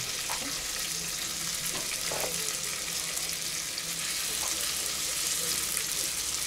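Pangasius fish fillets frying in a pan, a steady sizzle.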